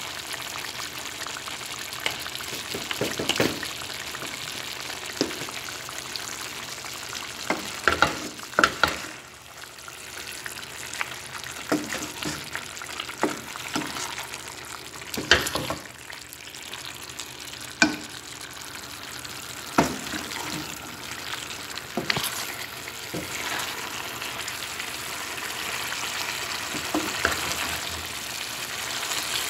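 Chicken and green capsicum strips frying in a stainless steel pan with a steady sizzle, while a wooden spatula stirs them, scraping and knocking against the pan now and then.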